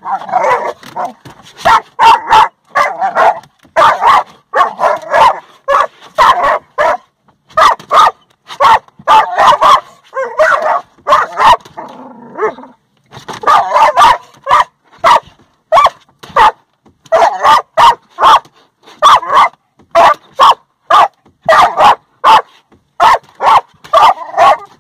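Pit bull puppy barking and yipping in rapid, loud bursts at the moving windshield wipers, with brief pauses, and sharp clicks among the barks.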